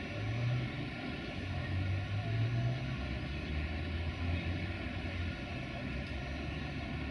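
Low, steady rumble of a Duewag BR628 diesel railcar idling at the platform, with station ambience.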